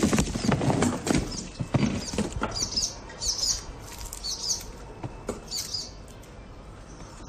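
A basketful of cooked shrimp poured onto a heap, a dry rustling clatter for the first two seconds or so, then scattered crackles of shrimp shells being peeled by hand. Four short high chirps from a small bird sound in the background between about two and six seconds in.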